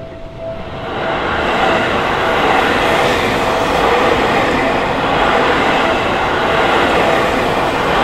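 Seibu Shinjuku Line electric commuter train running past over a level crossing. Its loud, steady wheel and running noise builds about a second in. The crossing's warning bell rings at the start and is soon drowned out.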